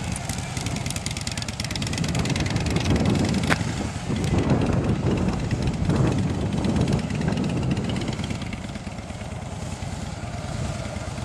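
2006 Harley-Davidson FXSTD Softail Deuce V-twin engine running at low revs through a slow cone weave. It grows louder as the bike passes close about halfway through, then fades as it rides away. One sharp click comes about a third of the way in.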